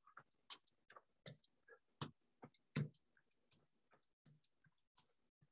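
Near silence with faint, irregular taps and light knocks of sneakers on the floor as a person steps through aerobic heel touches, the most distinct about two and three seconds in.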